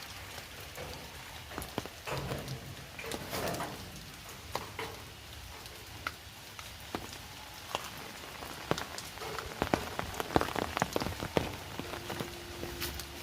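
Heavy rain falling: a steady hiss of rain with many sharp, irregular drop hits, which come thicker and louder in the second half.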